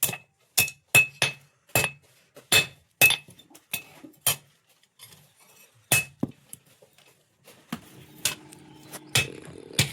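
Hammer blows on a steel anvil, hand-forging a sickle blade. Each strike rings with a metallic ping, about two a second at an uneven pace, with a pause of about a second and a half midway. In the last two seconds a low steady hum comes in under the strikes.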